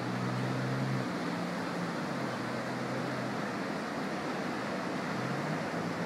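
Road traffic passing: a low engine hum that holds, drops a little about two seconds in and rises again near the end, over a steady rushing noise of surf.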